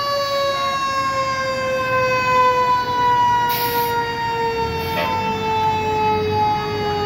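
Fire truck siren winding down slowly in one long falling tone, the slow coast-down typical of a mechanical siren. Two short hisses cut in about three and a half and five seconds in.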